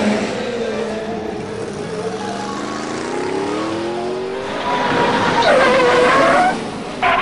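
Race-car engine sound effects laid over the toy cars, running and revving with a rising pitch around three seconds in. A louder wavering tire squeal follows from about five seconds in.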